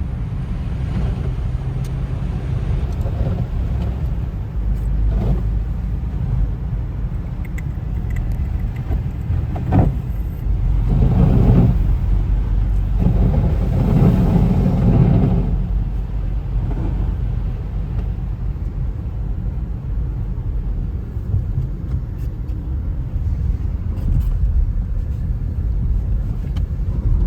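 Steady low rumble of a car driving, swelling louder for a few seconds in the middle.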